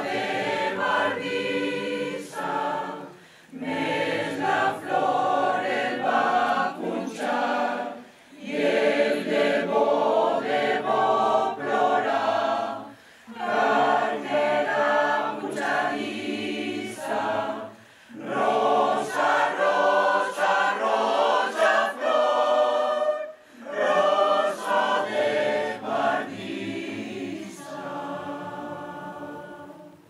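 Choir singing a cappella in phrases a few seconds long, with short breaths between them; the last phrase is held more softly until the piece ends.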